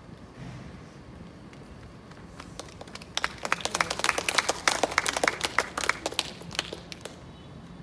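Audience applauding: a burst of hand claps that starts about three seconds in, grows dense, and dies away about a second before the end.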